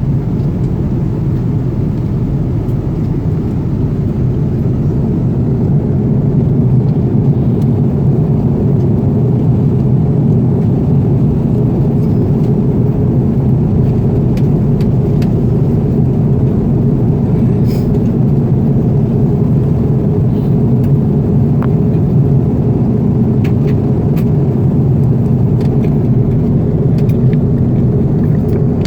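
Steady low drone inside the cabin of an Aeroflot Airbus A330 airliner: jet engine noise, with a few faint ticks.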